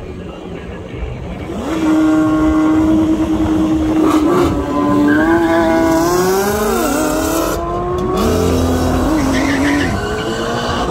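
A high-performance car launches hard from a standing start about two seconds in. Its engine note climbs steeply through the gears, dropping at each upshift as it pulls away down the strip.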